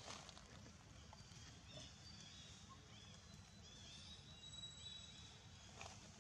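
Near silence: faint outdoor ambience with a steady low rumble, a few faint short high chirps, and a soft rustle or click near the end.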